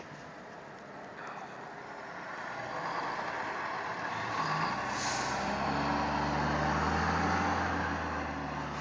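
Snow plow truck approaching and passing: a rushing noise that grows louder over several seconds, joined about halfway by a steady engine drone, then easing off slightly near the end.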